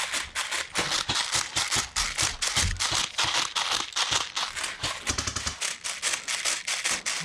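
Airsoft gunfire: rapid, irregular sharp cracks and rattles, several a second, from rifles firing in an exchange.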